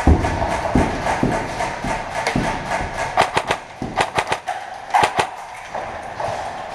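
Airsoft guns firing: sharp snapping shots in short quick runs about three, four and five seconds in. Heavy low thuds come in the first two and a half seconds.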